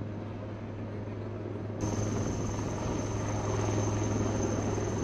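Helicopter hovering low: a steady rotor hum with engine noise. About two seconds in the sound suddenly gets louder and a high, steady turbine whine comes in.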